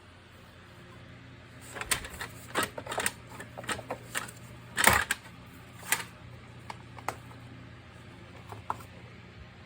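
A run of irregular hard clicks and knocks, plastic parts of a cyclone vacuum cleaner being handled and fitted, over a faint steady low hum.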